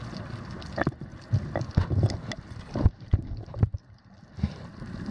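Irregular underwater knocks and low thumps from handling of an underwater camera housing.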